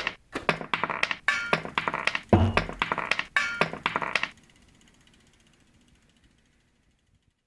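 A rapid, uneven run of mechanical clacks and knocks from makerspace equipment, with a heavier thump about two and a half seconds in. It stops abruptly about four seconds in and trails off to silence.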